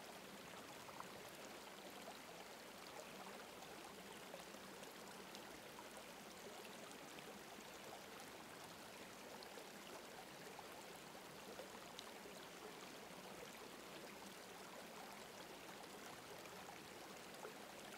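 Near silence: a faint, steady rushing hiss with tiny scattered ticks.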